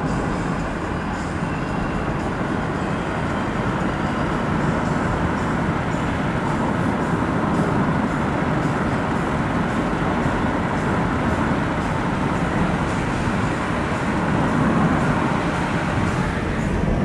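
A car driving on a road, heard from inside the cabin: steady tyre and engine noise.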